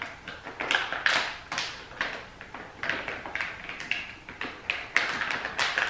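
A flexible plastic pouch of engine oil crinkling and crackling in the hand as it is squeezed empty into a mower engine. There is an irregular run of short crackles and taps throughout.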